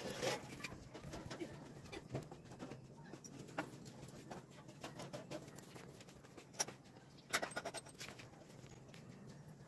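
Scattered light clicks and knocks from a motorcycle's rear wheel, sprocket and axle being handled while the wheel is refitted, the loudest just after the start and about seven seconds in. A bird calls in the background.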